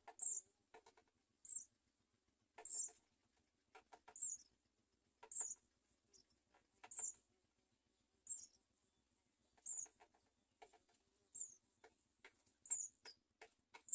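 House sparrow nestlings begging with short, high, squeaky cheeps, repeated about once every second and a half, with faint scuffling in the nest along with each call.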